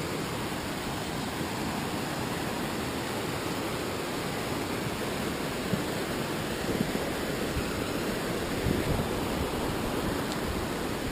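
Steady rushing of a mountain stream, with a few low thumps in the second half.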